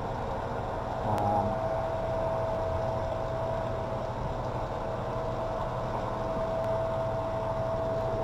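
Steady machine hum with a constant high whine running through it.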